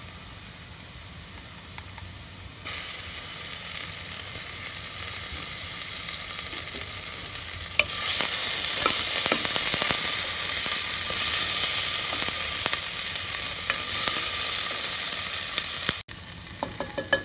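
Garlic-ginger paste sizzling in hot ghee with browned onions in a pressure cooker, stirred with a wooden spoon that scrapes and knocks against the pot. The sizzle grows louder in two steps, about three and eight seconds in, and drops away abruptly near the end.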